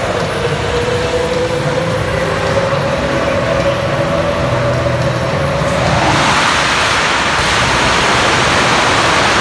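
Jet engine on a golf cart running with a steady rushing noise and a high turbine whistle. About six seconds in, the whistle rises and the rush grows much louder as the engine is throttled up.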